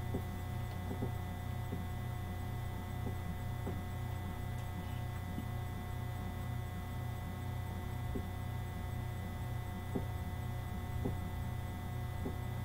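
Steady low electrical mains hum, with a few faint scattered clicks.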